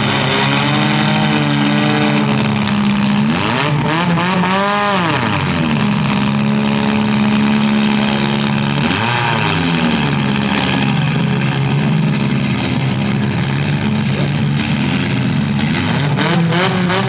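Several compact car engines running hard in a demolition derby, layered over one another. One engine revs up and drops back sharply about four seconds in, again about nine seconds in, and once more near the end.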